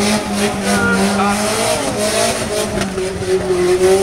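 Pickup truck engine running hard on a dirt track, its pitch rising and falling.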